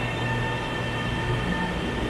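Shanghai Metro Line 4 train pulling out of the station past the platform: a steady rumble of wheels on rail under an even, high electric whine from the traction motors.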